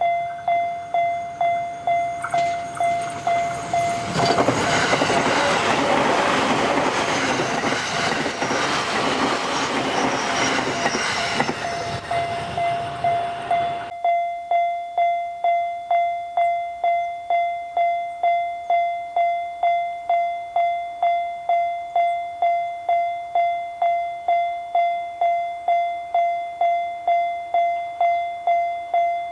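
Japanese level-crossing alarm ringing its repeated electronic "kan-kan" tone, just under two strikes a second, without a break. From about four seconds in until about fourteen seconds in, an electric JR Sobu Line train rumbles through the crossing over the bell, then stops being heard abruptly.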